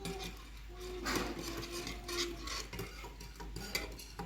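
A spoon stirring hot milk with chocolate, biscuits and sugar, with repeated irregular clinks and scrapes against the vessel.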